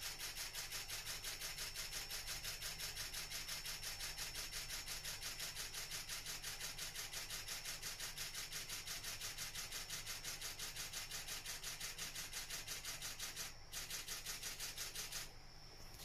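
Camera shutter firing in a continuous burst for macro shots, an even run of about six clicks a second over a steady high whine; it breaks off briefly near the end, fires again, then stops.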